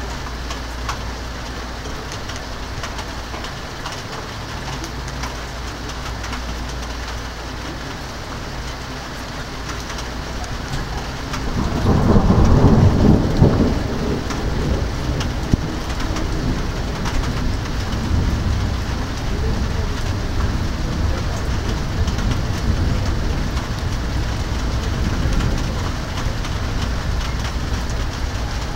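Steady rain during a thunderstorm. About twelve seconds in, a clap of thunder breaks in. It is loudest for about two seconds, then rumbles on low under the rain.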